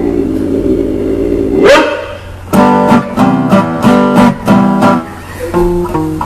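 A held sung note ends in a quick upward slide in pitch. Then a guitar strums loud chords about two a second, closing the song with a few single plucked notes.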